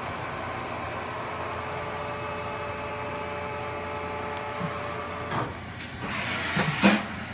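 Femco FV-40 CNC vertical machining center's spindle running with a steady hum and whine of several held tones, which cuts off about five seconds in. A short rustle and a sharp click follow near the end.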